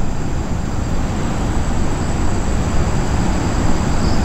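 Steady low rumbling noise with a constant high-pitched insect trill above it.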